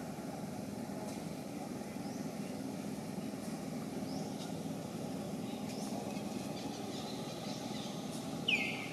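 Steady low rumble of traffic with faint, scattered high chirps. Near the end a young macaque gives one short, high-pitched squeal that falls in pitch.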